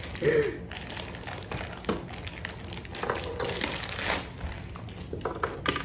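Plastic wrapper of a small blind-bag toy crinkling as it is handled and pulled out of a toy compartment, with scattered light taps.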